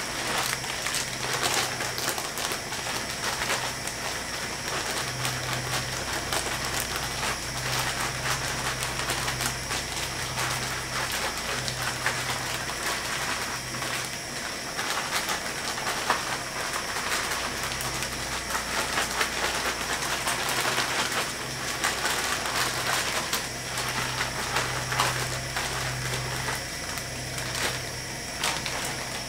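Hot oil crackling and hissing steadily in a pot on a propane fryer burner, with a low hum that cuts in and out.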